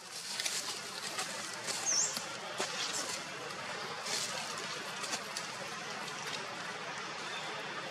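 Outdoor ambience: a steady hiss with scattered faint ticks and one short high chirp about two seconds in.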